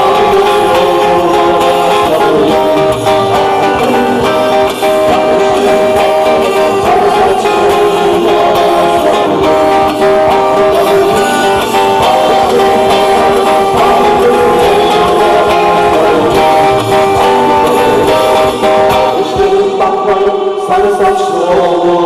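Live music from a stage: a group playing guitar and singing a song.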